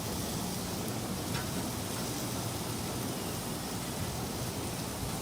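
Steady hiss of rain falling during a thunderstorm, with a faint click about a second and a half in.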